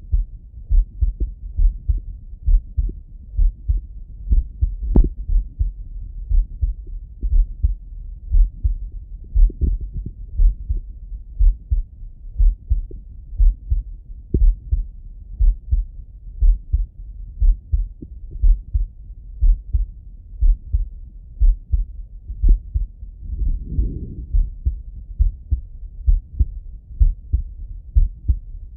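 A man's heartbeat heard through a Littmann stethoscope: slow, steady lub-dub beats as low thuds. A brief sharp click sounds about five seconds in.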